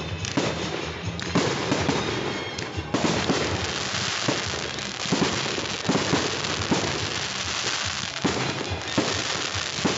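Fireworks display: a dense, continuous crackle of many small reports, with sharper bangs about once a second, thickening about three seconds in.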